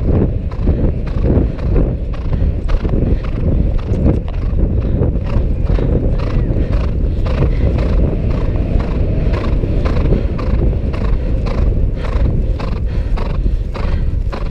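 Horse's hooves striking turf in a fast, steady rhythm, heard close up from the saddle during a cross-country ride.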